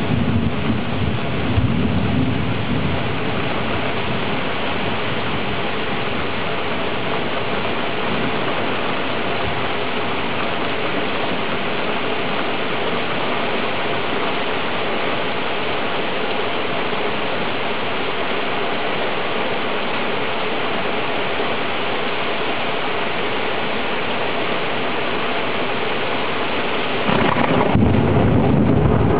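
Steady rain hissing through a thunderstorm, with low thunder rumbling in the first couple of seconds and a louder roll of thunder setting in near the end.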